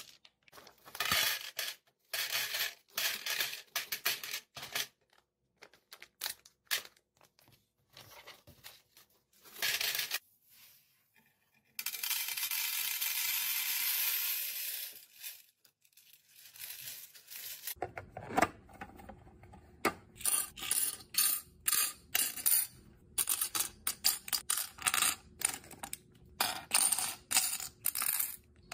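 Plastic beads poured from a plastic bag into a clear acrylic drawer, clattering and clicking among the other beads, with the packet crinkling and a steady hiss of pouring beads for a few seconds in the middle. From about 18 s on, rapid clicking of small plastic charms dropped and sorted into a clear plastic compartment box.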